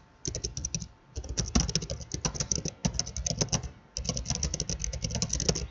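Computer keyboard typing in quick runs of keystrokes, with brief pauses about a second in and about four seconds in.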